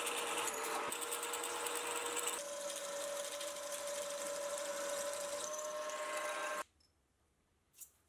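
Vertical milling machine drilling a starter hole into a mild steel block, the spindle running with a steady tone. The pitch steps up slightly about two and a half seconds in, and the sound cuts off abruptly about a second and a half before the end.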